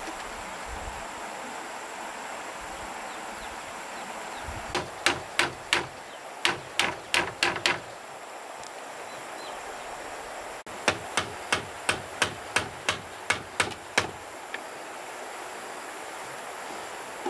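Repeated blows of a hand tool during building work, in two runs of about ten sharp strikes each, roughly three a second, with a pause between them.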